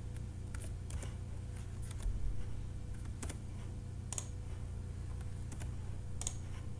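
A handful of short, sharp computer mouse and keyboard clicks, spaced irregularly, over a steady low hum.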